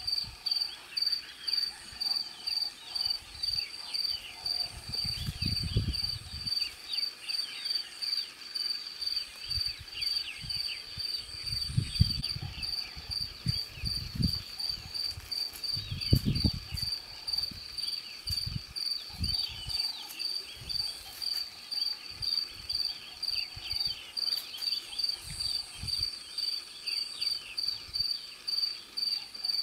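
A cricket chirping steadily at a high pitch, about twice a second, over faint scattered bird-like chirps. Now and then there is a low rumble.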